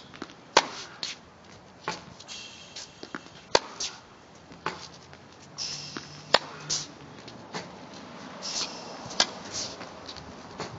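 Tennis racket hitting balls in a practice rally: sharp pops every couple of seconds, with fainter ball bounces and shoe scuffs between.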